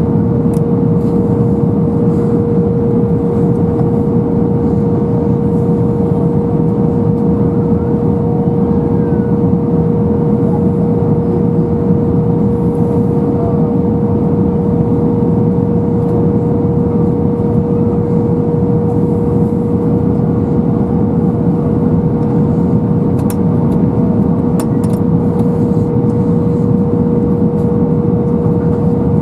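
Steady jet cabin noise inside an Airbus A320-214, heard from a window seat over the wing: a broad rushing drone from the CFM56 engines and the airflow, with a constant mid-pitched hum running through it.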